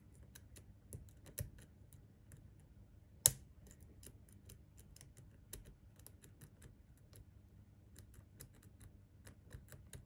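Steel lock pick clicking against the pins inside a lock cylinder as it is picked under tension: light, irregular ticks, with one sharper click about a third of the way in.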